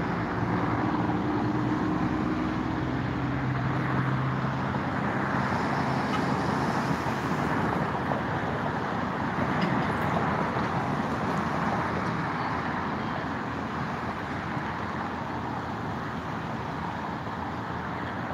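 Steady urban road traffic noise, with a low engine hum in the first few seconds, easing off slightly toward the end.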